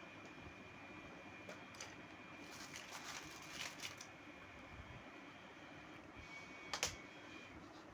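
Small plastic toy kitchen pieces being handled: a few light clicks, a patch of crinkly rustling about three seconds in, and one sharper click near the end, over a faint steady hiss.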